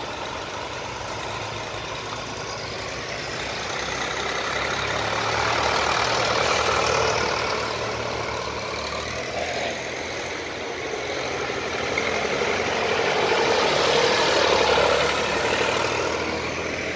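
Engines of vintage tractors driving past one after another, the sound swelling as each one comes closest, about six seconds in and again around fourteen seconds.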